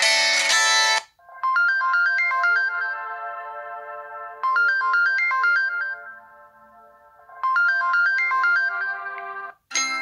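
LG G6 built-in ringtones previewed one after another: the previous ringtone cuts off about a second in, then a new ringtone plays a short melody of quick high notes three times before stopping just before the end, when the next ringtone starts.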